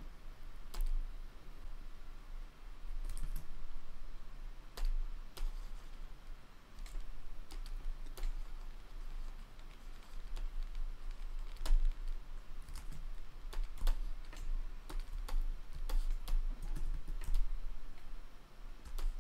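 Irregular clicks of a computer mouse and keyboard, roughly one a second, over a low hum.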